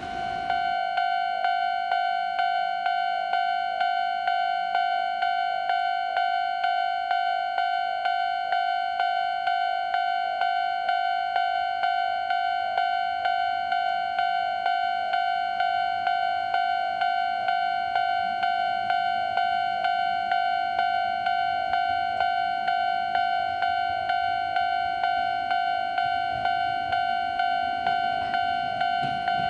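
Japanese railway level-crossing warning bell ringing: an electronic clanging tone repeated evenly, about two strikes a second, signalling an approaching train.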